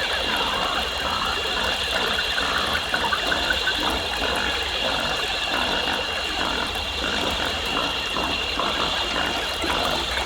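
Designed rainforest ambience: a steady high-pitched buzzing chorus with scattered chirps and animal calls over a constant deep bass rumble.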